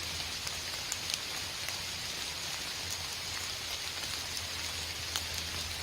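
Steady rain: an even hiss with scattered sharp ticks of single drops landing.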